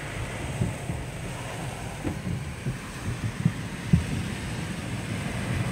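Automatic car wash's cloth brushes and water spray scrubbing over the car, heard from inside the cabin as a steady low rumble with several dull thumps as the cloth strips slap against the glass.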